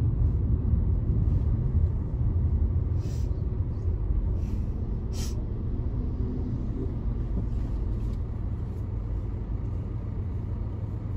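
Low, steady rumble of a car's engine and road noise heard from inside the cabin, easing off as the car slows into queued traffic. Three short hisses come between about three and five seconds in.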